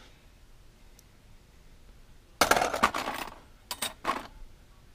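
A pile of small thin metal ornament and trim pieces, brass and silver plate, clinking and scraping together as a hand rummages through them in a cardboard box. It comes in two bursts, the first about halfway in and a shorter one just after.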